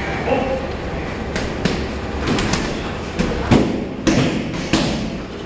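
Punches and kicks landing on Muay Thai pads: a string of sharp, irregular smacks, several from different pairs overlapping in quick succession.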